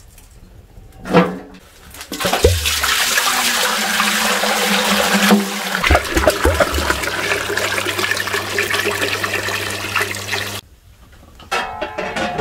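Water pouring in a steady stream from a metal spout into a large aluminium pot, stopping abruptly about ten and a half seconds in. A clunk comes about a second in, before the pour starts.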